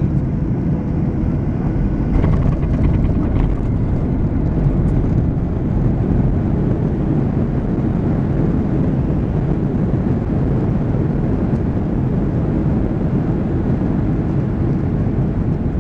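Steady low rumble inside the cabin of a Boeing 737-900 rolling on the ground after touchdown: engine noise mixed with wheel and airframe rumble.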